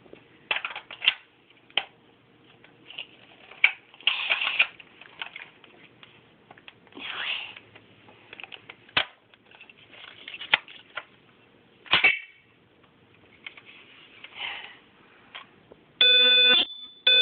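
Plastic clicking, tapping and rattling as a battery is fitted into a smoke detector by hand. Near the end, the smoke detector sounds a loud, harsh beep of under a second, then starts a second one.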